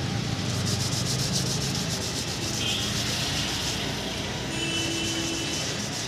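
Fresh betel leaves rustling and rubbing as they are handled and wiped by hand on a stone counter, over a steady background of street noise.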